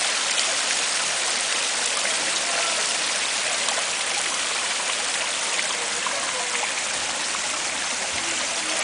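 Homemade garden waterfall, water pouring and splashing steadily over rocks into a pond.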